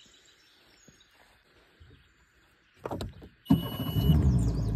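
A brief clatter about three seconds in, then an engine suddenly starts and runs steadily and loudly, with a low, evenly pulsing note.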